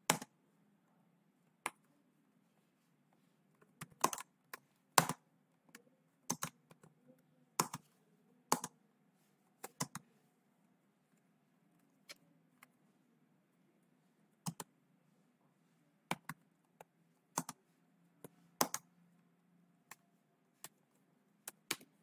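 Typing on a computer keyboard: scattered keystrokes, singly and in short clusters, with pauses between them.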